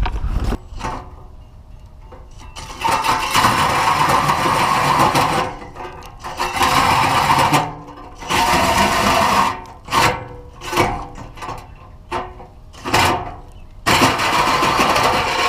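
Power drill with a hole saw cutting a hole through a truck bumper, run in three long bursts and then several short ones.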